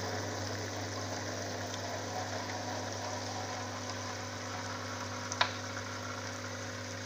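Aquarium air pump humming steadily, with a fizzing bubble noise from air being pushed through a diffuser into the tank; with the diffuser on the air line the pump's noise is turned down. A short click about five and a half seconds in.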